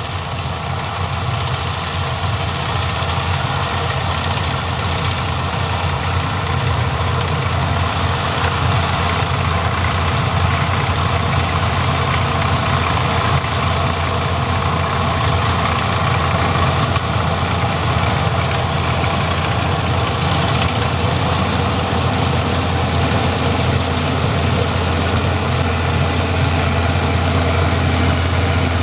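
An engine running steadily at an even speed, with a strong low hum.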